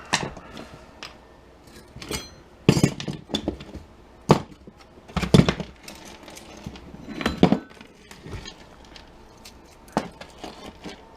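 Metal parts and hand tools clinking and knocking irregularly while a jump starter pack is taken apart for scrap, with several sharper clatters in the middle.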